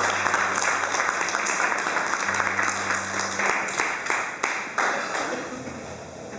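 A crowd applauding, many hands clapping together. The clapping dies away over the last second or so.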